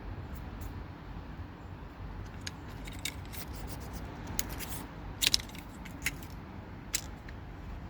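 Small metallic clicks and scrapes from handling a kick scooter's stuck wheel, irregular, with a sharp double click about five seconds in and single clicks near six and seven seconds, over a low steady rumble.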